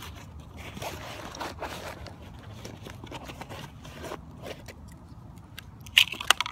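Fabric rustling and scraping as a hand rummages in a backpack pocket, then a few sharp clicks near the end as a fixed-blade knife is drawn from its hard plastic sheath.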